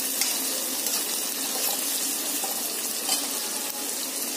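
Chopped onions sizzling steadily in hot oil in a kadai, being fried toward golden brown, with a few faint scrapes of a spatula stirring them.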